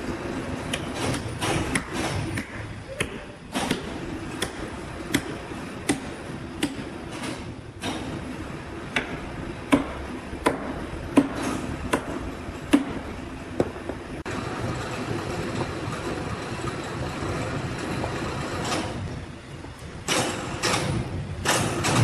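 Sawmill workshop noise: a steady machinery hum with a string of sharp knocks and clanks, often less than a second apart, through the first half. Near the end there are a few louder rushing bursts.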